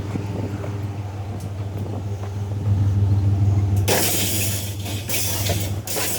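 Truck engine idling with a steady low hum that grows louder a little under three seconds in. From about four seconds in, two or three loud bursts of rough noise come over it.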